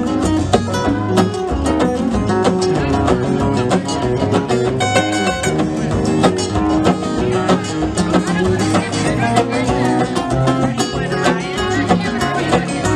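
Live acoustic guitar playing an instrumental break in a blues song, with quick picked notes over a steady bass line.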